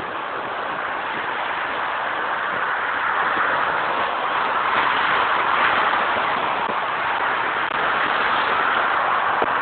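Rough sea and strong wind heard through a phone microphone: a steady rushing noise that slowly swells louder.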